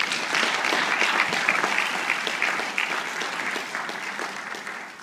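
An audience applauding, the clapping thinning out toward the end.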